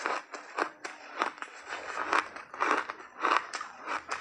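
Refrozen ice chunks being bitten and chewed close to the microphone: a quick, uneven run of sharp crunches, about two to three a second.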